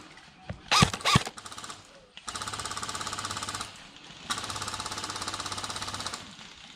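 Airsoft electric gun firing on full auto: two long, rapid, even bursts, the second the longer. About a second in, two loud sharp cracks come close together.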